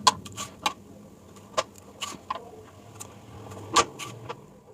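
A knife working a raw green plantain as its skin is pared off: about nine short, sharp clicks and scrapes at irregular intervals.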